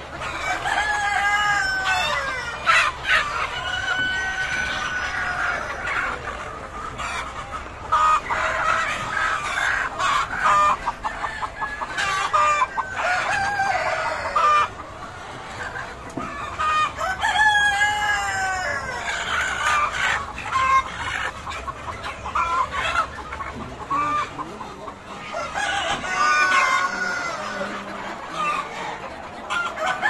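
A flock of broiler parent-stock chickens: roosters crow repeatedly over hens clucking, with calls that bend and fall in pitch. A few sharp knocks sound in between.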